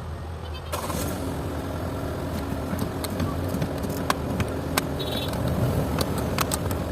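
A vehicle engine running steadily, with scattered light clicks and knocks over it.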